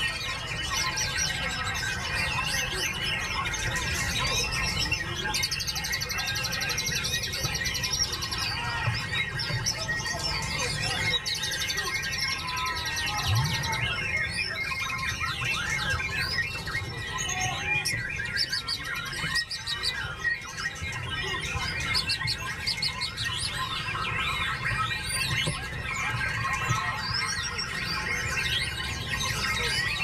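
White-rumped shama singing a long, varied run of loud whistles and chirps, overlapped by other caged songbirds singing at the same time, with a fast trill about five seconds in.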